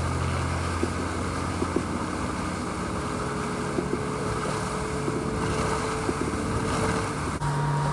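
Motorboat running at speed: the bow wave and spray hissing along the hull, wind on the microphone, and the engine's low steady drone underneath, with a few light knocks.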